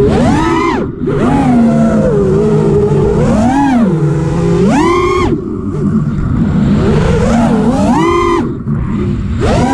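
FPV freestyle quadcopter's Brotherhobby T1 2205 brushless motors spinning Ethix P3 props, their whine surging up in pitch and falling back several times as the throttle is punched: sharpest about half a second in, around three and a half and five seconds, and near eight seconds. A steady rush of wind runs under it.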